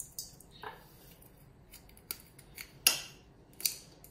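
A few short sharp clicks and knocks, the loudest about three seconds in: spice jars being handled and set down on a granite countertop while seasoning meat.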